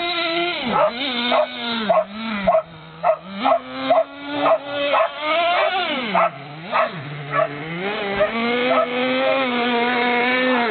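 The small engine of a radio-controlled monster truck running with a buzzy note, revved up and down repeatedly. Short sharp sounds come about twice a second over it.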